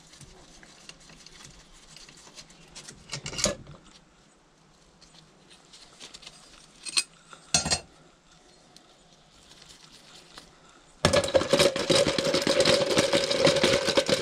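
A few light clinks and knocks of metal engine parts and tools being handled. About eleven seconds in, a loud steady hiss with a held whine through it starts and runs to the end.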